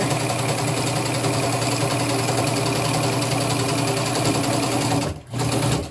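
Electric sewing machine running steadily as it stitches fabric, stopping briefly about five seconds in and starting again.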